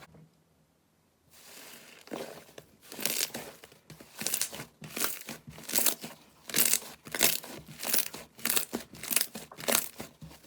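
Slime being pressed and stretched by hand, giving crackling, crinkling pops that repeat about twice a second, starting about two seconds in.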